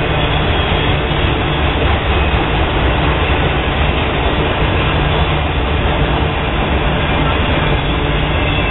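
Intermodal train of flatcars carrying truck trailers rolling past, a steady rumble of steel wheels on rail.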